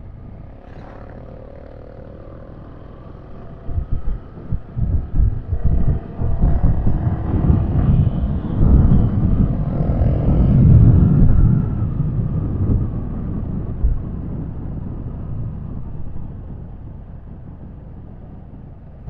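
Wind buffeting a helmet-mounted microphone on a moving motorcycle, with engine and traffic rumble underneath. The rumble is steady at first, then gusts of wind start a few seconds in, grow strongest in the middle and ease off toward the end.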